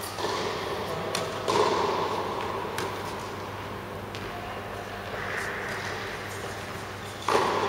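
A few sharp knocks of tennis balls being bounced and struck, over a steady background hum of the indoor tennis hall.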